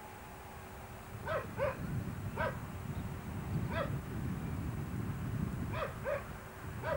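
A dog barking: about seven short barks at irregular intervals, some in quick pairs, over a steady low background rumble.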